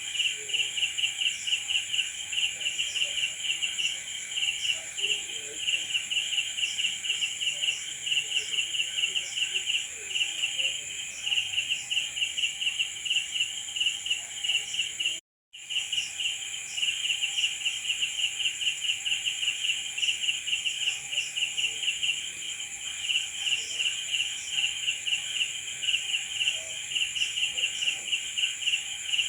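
Night chorus of crickets: a fast, pulsing chirp over a steady high-pitched trill, broken by a split-second cut to silence about halfway through.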